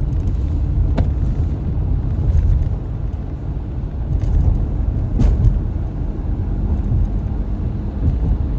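Car driving on the highway, heard from inside the cabin: a steady low rumble of engine and tyre noise, with two faint ticks, about a second in and about five seconds in.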